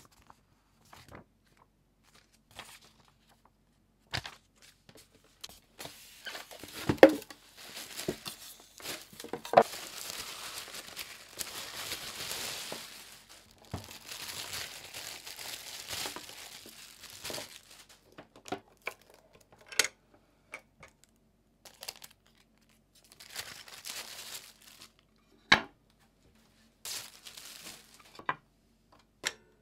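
Plastic packaging crinkling and rustling in irregular bursts as a new sandwich maker's cord and plates are unwrapped by hand, with a few sharp knocks from handling the parts.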